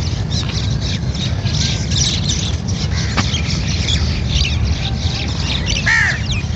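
Many small birds chirping and chattering together in quick, overlapping calls, with one louder, lower squawk about six seconds in. A steady low rumble runs underneath.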